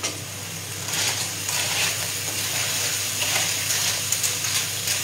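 Porcini and clams sizzling in frying pans on a gas hob, the hiss swelling about a second in. Near the end come a few light metallic clicks as a lid is handled on the clam pan.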